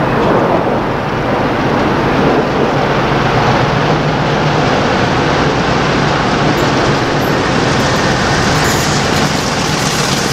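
Class 50 diesel locomotive 50008 Thunderer, its English Electric 16-cylinder engine running steadily as it draws near and passes with its coaches. From a little past halfway come repeated short clicks of wheels over rail joints.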